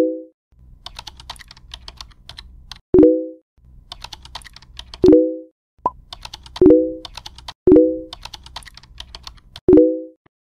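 Keyboard-typing sound effect in quick runs of clicks, each run ended by a short chime as a chat message pops up; six chimes in all, the loudest sounds here.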